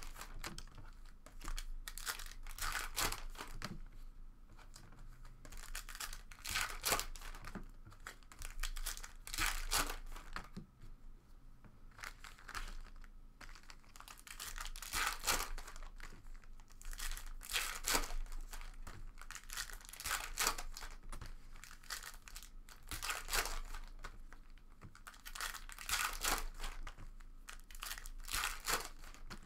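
Foil trading-card pack wrappers being torn open and crinkled by hand, in repeated short rustles.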